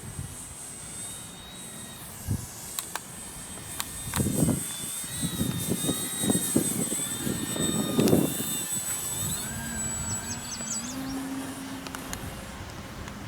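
E-flite PT-17 radio-controlled biplane's electric motor and propeller whining in flight, the pitch wandering as it flies past. Wind gusts buffet the microphone, heaviest about four to eight seconds in.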